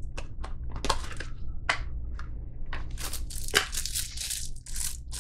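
A few light taps and rustles as a small cardboard knife box is handled, then a thin plastic bag crinkling busily from about three seconds in as a folding knife is unwrapped from it.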